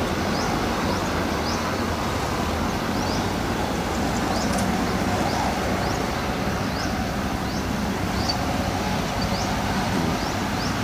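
Farm tractors' diesel engines running steadily while pulling small round straw balers across rice stubble. A faint, short, high rising chirp repeats about twice a second.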